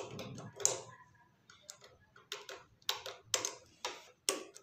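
A pen tapping and scratching against a metal drawer slide, a string of short irregular clicks, as screw-hole positions are marked through the slide's holes onto the wooden drawer side.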